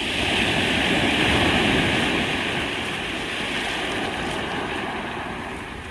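Sea surf: a wave breaks at the start, and its foam washes up a pebble beach, the rushing noise easing off gradually.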